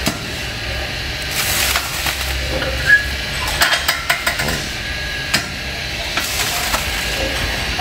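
Background noise of a busy outdoor cooking area: a steady low rumble with scattered clinks and knocks and two short hisses.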